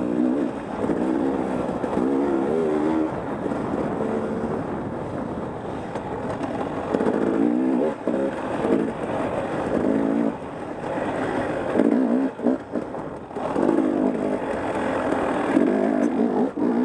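Dirt bike engine under race riding, revving up and down over and over as the rider works the throttle and gears on a woods trail, with a few brief drops where the throttle is chopped.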